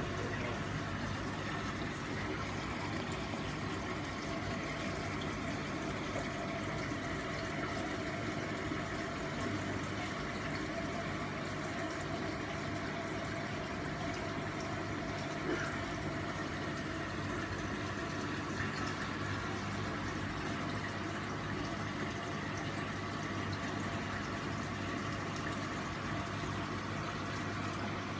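Reef aquarium coral trays with water circulating and pumps running: a steady wash of water over a low, steady hum.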